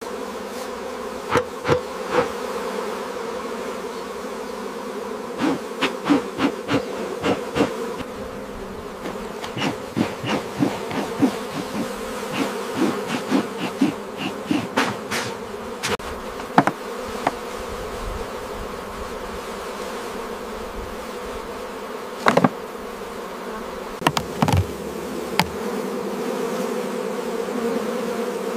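Honeybees buzzing around the hives in a steady drone. Many short, sharp clicks and taps come through it, several a second in bunches, with the sharpest one a little past halfway.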